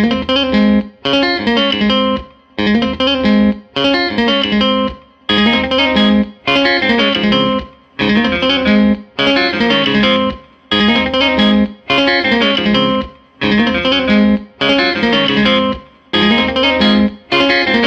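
Background music led by an electric guitar, playing short phrases roughly once a second with brief breaks between them.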